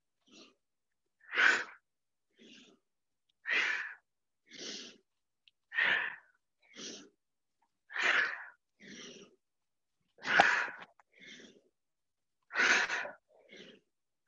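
A woman's forceful, rhythmic yoga kriya breathing: six loud, sharp breaths about two seconds apart, each followed closely by a softer one.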